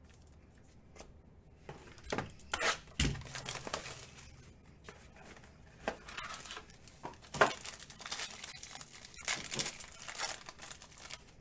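Plastic card-pack wrapping being crinkled and torn open by hand, in irregular rustles with a few sharp clicks.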